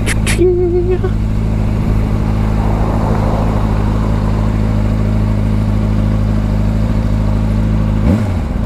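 Sport motorcycle engine running steadily at low revs while the bike rolls slowly, with a short quick rev of the throttle near the end.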